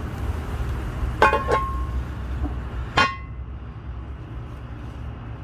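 Lodge cast iron Dutch oven lid being set onto the pot: two quick ringing metal clinks a little over a second in, then a single louder clank about three seconds in as the lid seats. A steady low rumble runs underneath.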